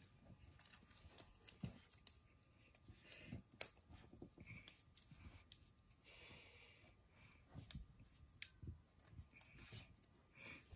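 Origami paper being folded and creased by hand: faint, scattered crinkles and small ticks of paper.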